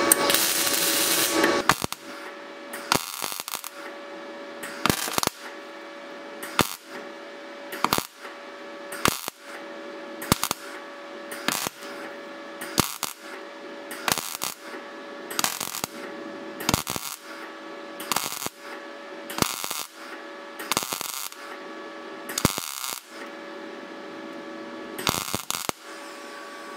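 MIG welder arc laying a series of short tack welds, each a brief crackling burst of about a quarter second, roughly one a second, over a steady hum from the welder. For about the first two seconds there is a louder steady noise from the wire-feed unit.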